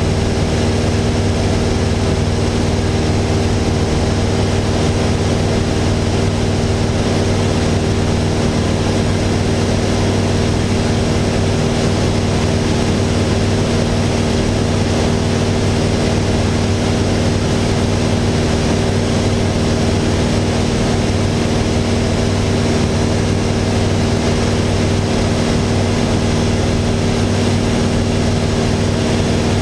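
Cabin drone of a Mooney M20J 201 in flight: its four-cylinder Lycoming IO-360 engine and propeller running steadily, a constant low hum under an even rush of noise.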